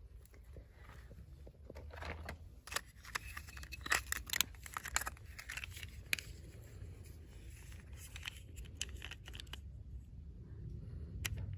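Toy packaging being handled and opened by hand: crinkling, tearing and small clicks, busiest between about two and six seconds in, over a low steady hum.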